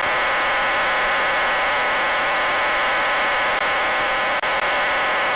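Data burst from the Cuban numbers station on 11530 kHz shortwave, received on a software-defined radio: a steady buzz of many parallel tones over receiver hiss.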